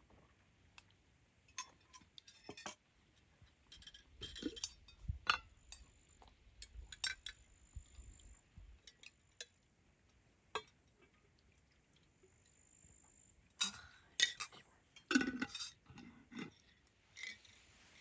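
Scattered clinks and taps of metal spoons against enamel bowls and mugs as people eat and drink, with several quick clinks close together about four seconds in and again near the end.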